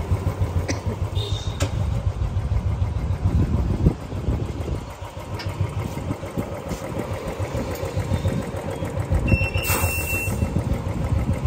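Royal Enfield Classic's single-cylinder engine idling with an even low pulse. About nine and a half seconds in, compressed air hisses for about a second as the tyre is pumped up.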